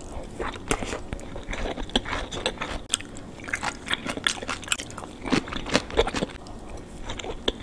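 Chewing a bite of shrimp tempura sushi roll topped with tobiko: crunching and clicking in quick, irregular bursts.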